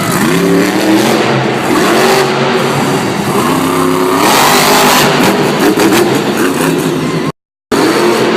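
Monster truck engine revving hard, its pitch climbing and falling again and again. The sound cuts out completely for a moment about seven seconds in.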